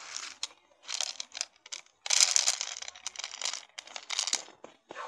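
Plastic packet crinkling as dry cat food is shaken out of it onto a plastic plate, in several rustling goes, the longest starting about two seconds in.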